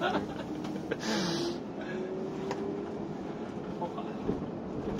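Cab interior of the Hyliion ERX electric truck driving on battery power: steady road and drivetrain noise with a faint electric motor whine, and a short hiss about a second in.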